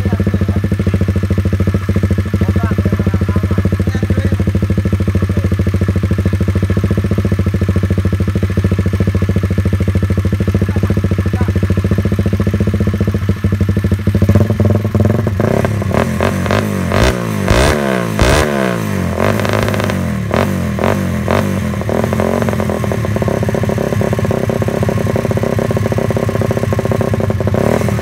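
Honda GL100 single-cylinder engine, built up to about 200 cc with a Suzuki Satria cylinder head, running on a stand through a slip-on muffler. It idles steadily, then a little past halfway it is revved up and down several times for about eight seconds before settling back to a steady idle.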